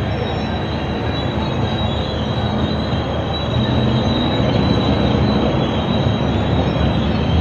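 T-72 tank on the move: its V12 diesel engine running steadily under the rattle of its steel tracks, with a steady high whine over it. The sound grows louder about halfway through.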